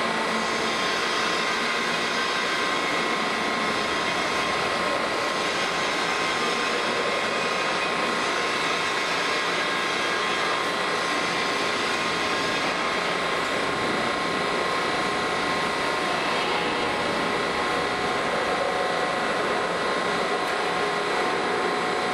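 Heavy plate rolling machine running as it bends a thick steel plate into a cylinder: a steady mechanical drone with a constant high whine.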